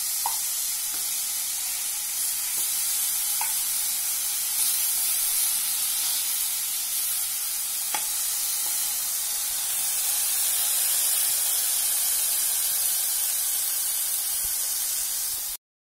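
Spice-coated pineapple spears sizzling in ghee in a nonstick frying pan: a steady, high hiss, with a few light clicks of the spatula against the pan. The sound cuts out abruptly just before the end.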